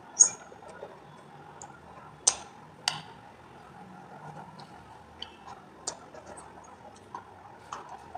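Crisp crunches of dried edible clay being bitten and chewed: a few sharp snaps, the loudest right at the start, with quieter clicks of chewing between.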